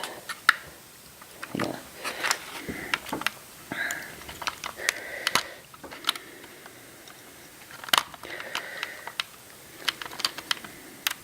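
Small plastic parts being worked off an HO scale model locomotive by hand: scattered irregular clicks and brief scraping as the plastic wheel protectors are pried off.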